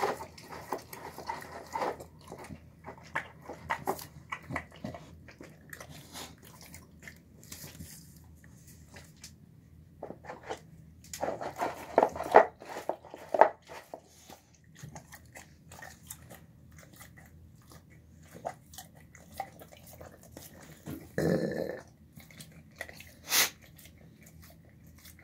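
A dog eating a soft home-cooked meal of chicken, rice and garbanzo beans from a bowl, chewing and biting in bursts, loudest about twelve seconds in. A single sharp knock comes near the end.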